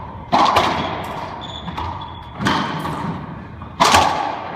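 Racquetball rally: four sharp cracks of the ball off racquets and the court walls, each echoing in the enclosed court, with the loudest near the end.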